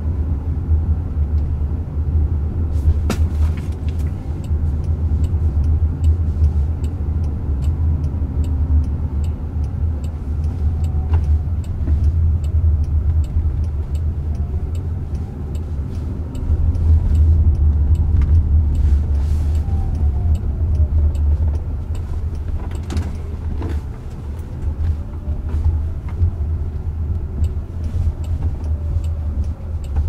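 Road and tyre noise inside the cabin of a moving Jaguar I-Pace electric car: a steady low rumble, with a faint whine that rises and falls in pitch now and then and a few sharp clicks.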